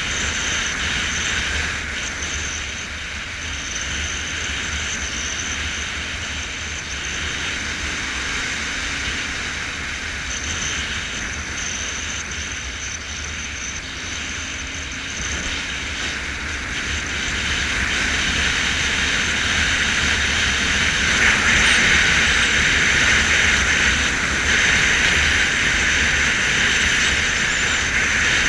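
Motorcycle riding along at road speed, heard from a camera on the bike: a steady rush of wind over a low engine drone, growing louder about two-thirds of the way through.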